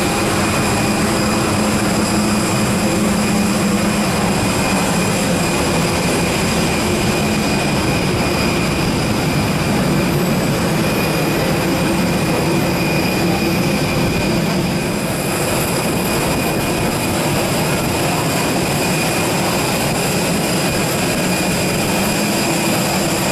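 Steady whine and rush of airliner gas turbines running on the apron, with several high steady tones over a broad rushing noise.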